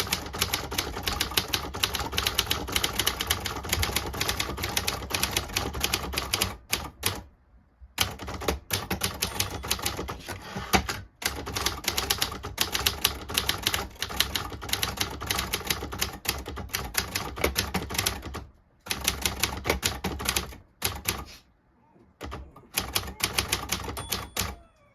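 1953 Adler Privat manual typewriter being typed on at speed: rapid strings of sharp key strikes, broken by a few short pauses.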